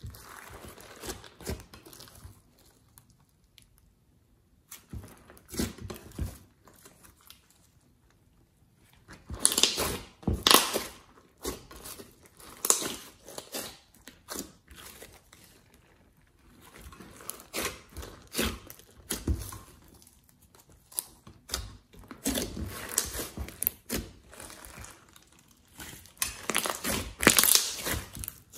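Hands kneading, pressing and folding glossy slime mixed with glitter and sequins in a glass tray, giving irregular runs of small sticky clicks and crackles. The sound comes in bursts with short near-quiet pauses, and is loudest about ten seconds in and again near the end.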